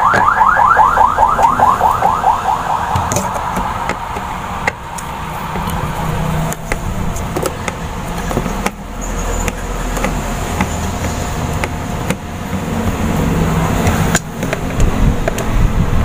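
A warbling electronic alarm tone pulsing about seven times a second, fading out over the first three seconds. After it comes a low steady rumble with a few sharp clicks as a socket wrench turns the screws of a washing machine gear case.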